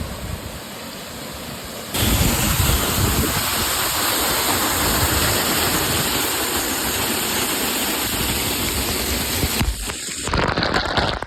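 Alamere Falls, a waterfall pouring onto the beach by the ocean, giving a steady loud rush of falling water that steps up in level about two seconds in.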